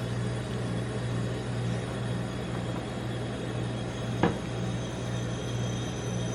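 Steady low mechanical hum, typical of the refrigeration unit under an ice cream roll cold plate, with one sharp tap about four seconds in.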